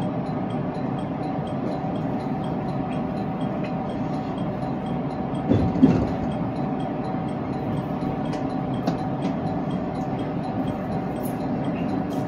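Inside an electric commuter train running slowly at caution speed: a steady running rumble with a steady hum, and one thump about halfway through.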